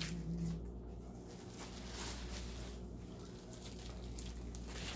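Faint rustling and crinkling of deli paper as sliced prosciutto is handled and the paper is folded over, in a few soft irregular spells. A short low hum of a voice sits at the very start.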